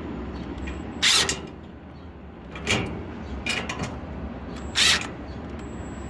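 Cordless impact driver run in short bursts, tightening a nut on a bolt: a loud burst about a second in and another near the end, with smaller blips between.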